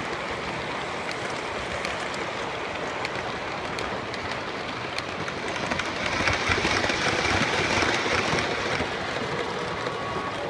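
Lionel O-gauge passenger cars rolling over three-rail track: a steady rumbling run with occasional clicks at the rail joints. It grows louder for a few seconds about six seconds in.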